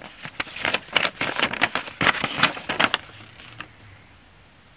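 A folded sheet of printer paper being unfolded and handled: a quick run of crisp paper crackles and rustles that stops about three seconds in.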